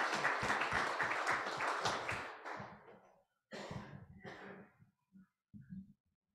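Applause from a small audience, dying away about three seconds in, followed by two short bursts of noise.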